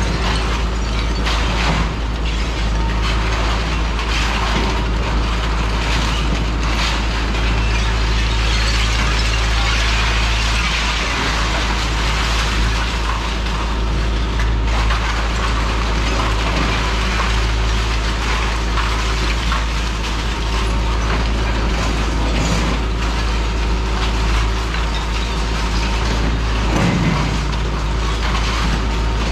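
Hitachi ZX210-6HSD demolition excavator's diesel engine running steadily under load as its demolition tool crunches into brick and concrete, with rubble clattering down now and then.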